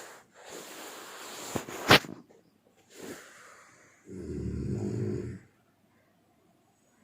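A person snoring: a long breathy draw of air ending in a sharp click about two seconds in, a short breath, then a low rattling snore lasting about a second and a half.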